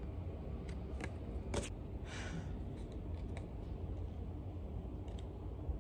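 Stiff photo cards and paper handled on a wooden table: a few sharp clicks and taps, with a short papery rustle about two seconds in, over a steady low room hum.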